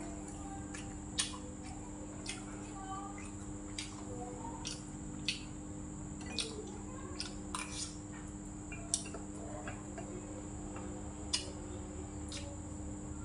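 A metal spoon and chopsticks clinking against a stainless-steel bowl while eating, about nine sharp, irregular clinks, over a steady hum.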